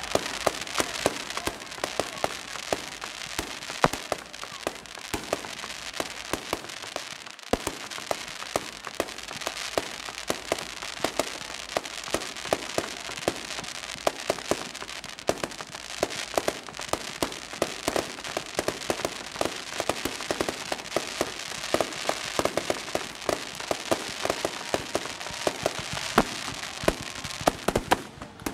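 Fireworks crackling: a dense, continuous stream of sharp pops and crackles, with louder cracks standing out among them and a brief break about seven seconds in.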